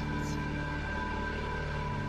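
A steady, eerie drone of several sustained low tones, humming evenly without a break: the kind of sound passed around as a 'strange sound in the sky'.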